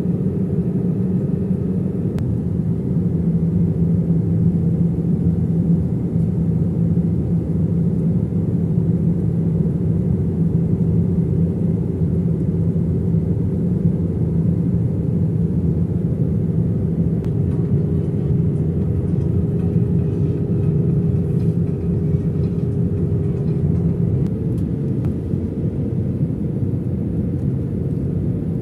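Steady low drone of an airliner's jet engines and airflow heard inside the passenger cabin during the descent, with a constant hum and no change throughout.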